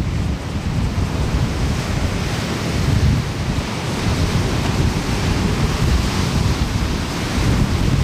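Ocean surf breaking and washing up a sandy beach as a continuous hiss that swells and eases. Under it is a deep, choppy rumble of wind buffeting the microphone.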